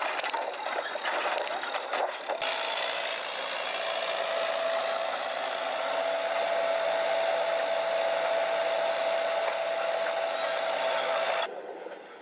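Tracked mine-clearing robot with a front roller driving, its running gear clattering at first. After about two seconds it settles into a steady mechanical whine with one held tone, which cuts off suddenly near the end.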